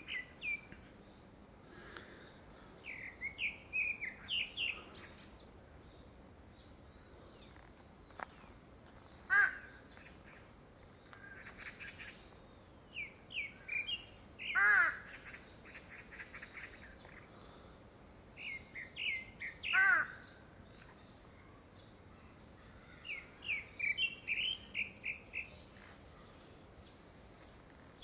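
Male grey-backed thrush singing: phrases of short whistled notes repeated every four to five seconds, several ending in a louder harsh note. The uploader takes it for courtship song ahead of a second brood.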